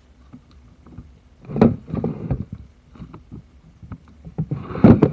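Crunchy slime being squeezed and worked by hand, giving irregular clusters of crackles and small pops, louder near the end.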